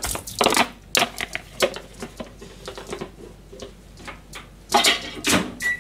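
Kitchen handling noise: a plastic food container being knocked and set down, a string of irregular clicks and clunks, loudest about five seconds in. A short high beep sounds near the end.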